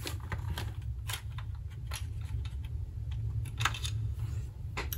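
Irregular light clicks and taps of hands and a small tool working on the plastic case of a portable cassette tape recorder as it is opened, over a steady low hum.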